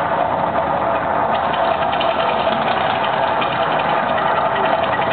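The Mirage volcano show erupting: a loud, steady rush of noise with dense fine crackling as the fire effects burst up.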